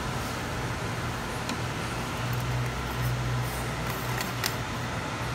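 Steady low background hum, with a few faint metallic clicks as the brass parts of a BPLUS Apollo hand coffee grinder are handled and fitted together, two of them close together near the end.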